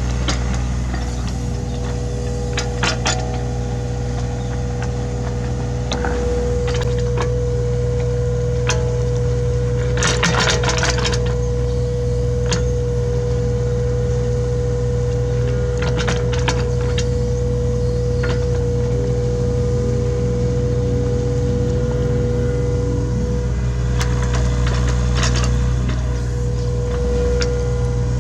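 Hitachi Zaxis 33U mini excavator's diesel engine running steadily under a steady hydraulic whine while it digs, with scattered clatters and cracks of the bucket scraping and breaking into the ground.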